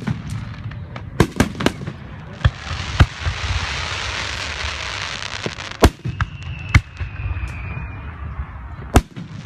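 Fireworks going off: a string of sharp bangs and cracks, with a dense crackling hiss in the middle. From about six seconds in, a thin high whistle runs for about two seconds, falling slightly in pitch.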